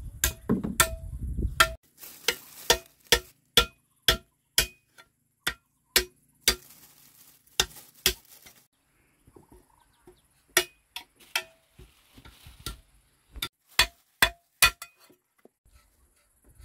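Repeated sharp strikes of metal farm hand tools, a hoe and a machete, each stroke with a short metallic ring. They come about two a second at first, then more spaced out and irregular.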